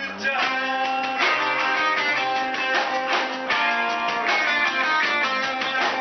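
A live rock band playing: electric guitars strumming over bass guitar and drums, with a steady driving beat.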